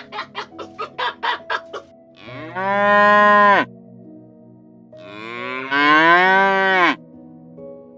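Farm animal calls: rapid clucking like a hen's, about six clucks a second, for the first two seconds, then two long, loud lowing calls like a cow's moo, each over a second long. Soft background music runs underneath.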